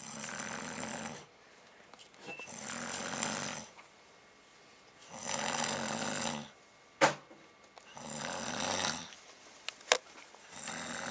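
A person snoring: five snores, one every two and a half to three seconds, with quiet gaps between them. Two sharp clicks, about seven and ten seconds in, are the loudest sounds.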